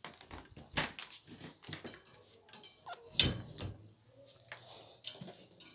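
Scattered knocks, clatter and rubbing, with the loudest a sharp thump about three seconds in.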